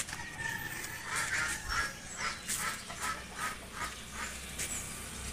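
Backyard fowl calling in a run of short repeated calls, about two or three a second.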